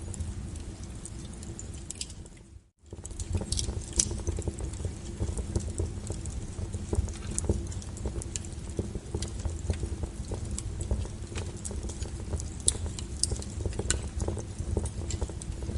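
Wood fire crackling and popping, with many irregular sharp snaps over a low rumble of burning logs. The sound cuts out for a moment near three seconds in, then the crackling carries on.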